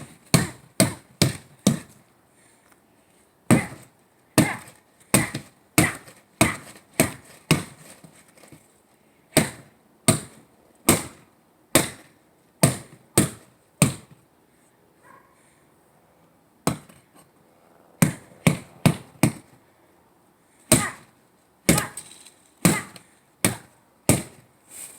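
Repeated sharp blows smashing a water heater box, in quick runs of several strikes about half a second apart, with short pauses between the runs and a longer lull past the middle.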